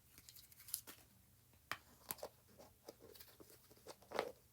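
Small plastic toy pieces being handled and set down: light, irregular clicks, taps and rustles, the loudest tap near the end.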